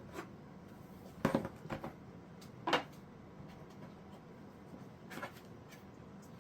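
A few short light knocks and clicks, as of a hard object being handled or set down, over a low steady hum: a cluster of three about a second in, a sharper one near the middle, and one more near the end.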